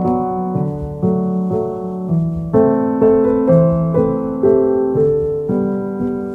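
Background piano music: slow, soft chords struck in turn, each fading before the next.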